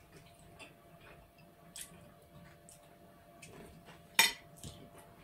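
Metal forks clinking and scraping on plates of fried potatoes, a few faint clicks with one louder clink about four seconds in.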